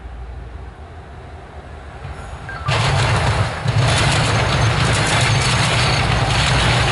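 Canadian National diesel freight locomotives approaching with a low engine rumble. The rumble jumps sharply louder about three seconds in and stays loud.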